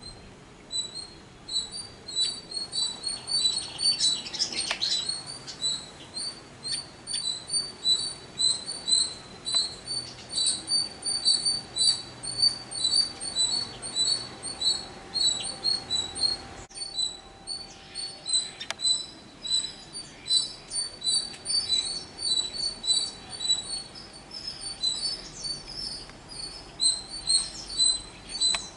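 Tailorbird giving short, sharp, high chirps over and over, several a second in runs, the repeated alarm calling that tailorbirds make at a snake.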